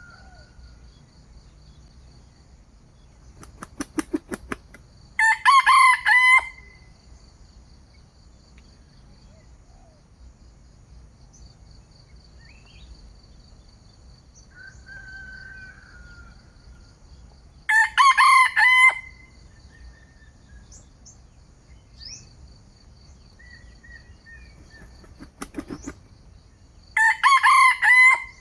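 A rooster crows three times, each crow about a second long. Before the first and last crows comes a quick burst of wing-flapping. A steady high insect trill runs underneath, with a few faint bird chirps.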